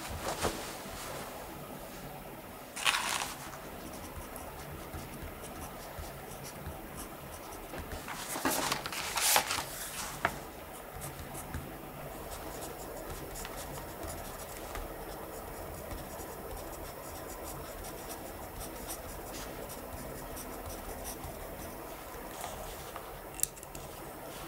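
A pen scratching on paper in quiet room tone, with a few short rustles about three seconds in and again around nine seconds, and a small click near the end.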